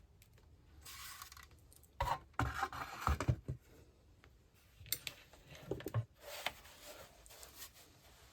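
Handling noise from a Dell LCD monitor's detached stand and plastic housing being moved on a work surface: knocks, clicks and scraping, in two clusters about two seconds in and again about five seconds in, with fainter rubbing between.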